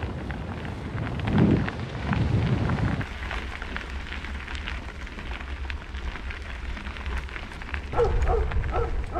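Mountain bike tyres rolling and crunching over a gravel track, with a steady low rumble of wind on the camera microphone. The sound changes about three seconds in, the heavier low rumble dropping away; near the end a run of short, repeated pitched calls starts.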